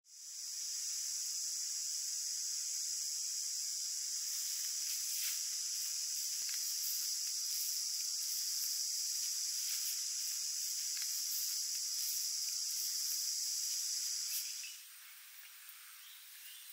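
Steady, high-pitched drone of an insect chorus, with a few faint ticks; near the end it cuts off abruptly, leaving a much quieter outdoor background.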